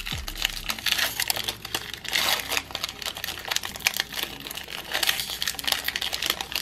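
Foil wrapper of a Magic: The Gathering Mystery Booster pack crinkling and tearing as it is pulled open by hand. It is a dense run of crackles, louder about a second in, around two seconds and around five seconds.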